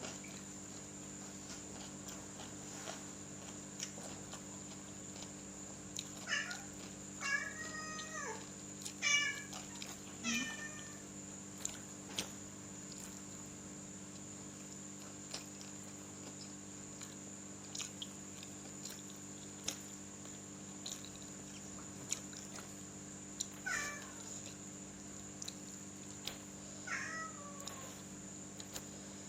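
Domestic cat meowing repeatedly: a cluster of meows about six to eleven seconds in, then a few more, some falling in pitch, near the end.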